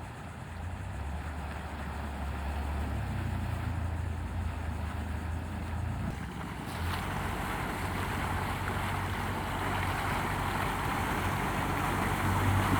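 Amphibious boat's engine running at low speed as a steady low hum, with a rush of wind and surf noise that grows louder about halfway through and builds toward the end.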